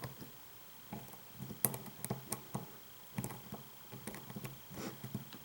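Faint, irregular clicks and light taps of a thin lock pick working the pins inside an American Lock 5200 padlock.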